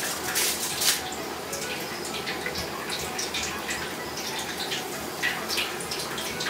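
Water running steadily from a kitchen tap, with a few light clicks.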